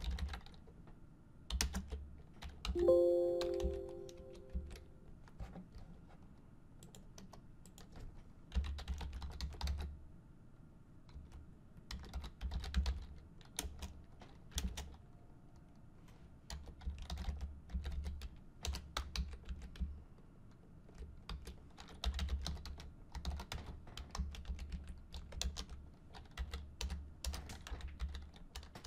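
Computer keyboard typing in irregular runs of keystrokes. About three seconds in, a short chime rings out and fades over a couple of seconds.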